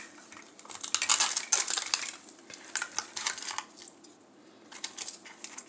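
Hard plastic toy-capsule pieces and packaging clicking and clattering as they are handled, in a few short flurries.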